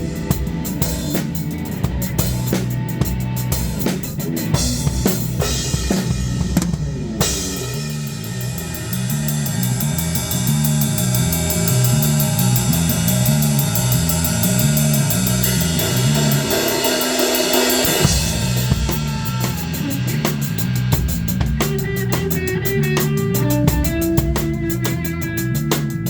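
Rock music with a full drum kit played along to the band: kick, snare and cymbals over bass and guitar. The cymbals thicken about seven seconds in, and the bass drops out briefly before the full band comes back in.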